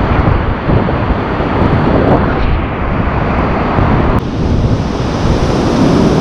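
Loud, steady rush of waterfall water, with wind buffeting the microphone.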